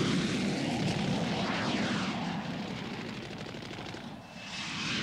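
Animated sound effect of fighter jets flying past: a dense rush of jet engine noise with a falling pitch about one and a half seconds in. It fades away, then swells again near the end.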